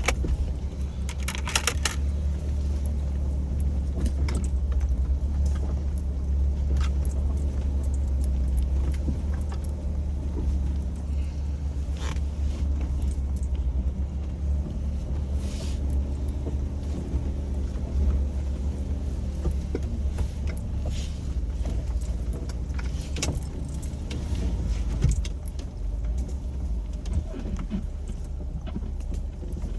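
Jeep engine running at low crawling speed over a rough trail, a steady low rumble, with scattered rattles and clinks of loose parts as the vehicle lurches over the terrain.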